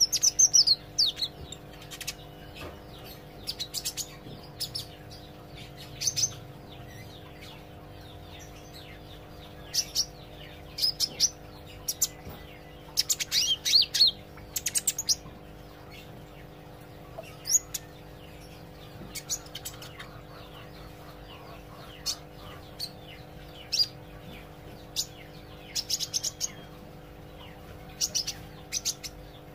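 Kolibri ijo, a sunbird kept as a cage bird, learning to sing, giving short high chirps and quick twittering phrases in scattered bursts. A steady low hum runs underneath.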